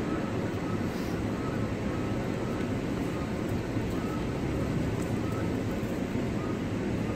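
Steady low rumble of outdoor background noise, even in level throughout, with no distinct events.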